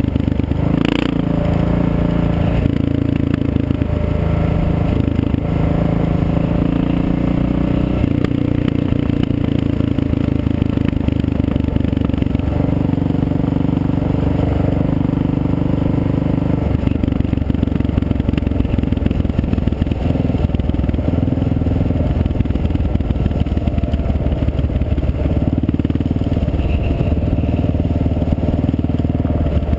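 Motorcycle engine running while riding on a gravel road, its note stepping up and down in pitch several times with throttle and gear changes, over a rough rumble of tyres on gravel. A sharp click about a second in.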